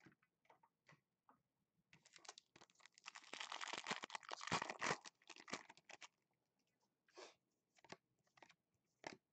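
Foil wrapper of a Prestige football card pack being torn open and crinkled, the tearing between about two and six seconds in. A few lighter crinkles and ticks follow as the cards come out of the pack.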